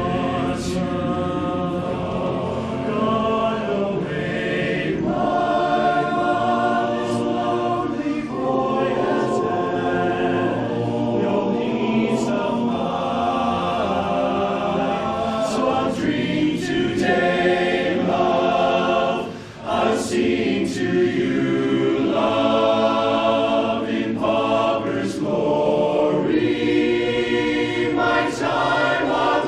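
Barbershop chorus singing a cappella in close harmony, held chords moving from one to the next, with a brief break about two-thirds of the way through.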